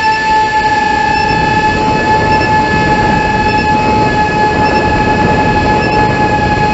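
Heewing Ranger T1's electric motor and pusher propeller running at steady high speed in flight, heard close to the onboard camera: a loud, steady high whine over rushing wind noise.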